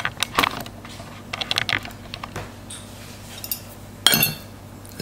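Metal fork tines clicking and scraping on a ceramic plate while shredding tender pressure-cooked chicken thighs, in short irregular bursts, with a louder clatter about four seconds in.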